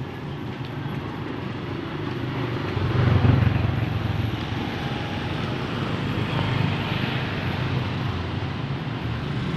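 Road traffic of motorcycles and motor-tricycles running along the street, with one motorcycle passing close, loudest about three seconds in.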